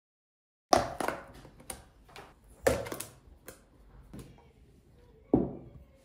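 Glassware being handled while drinks are set out: a series of sharp clinks and knocks with short ringing tails, three of them louder and about two seconds apart, starting about a second in.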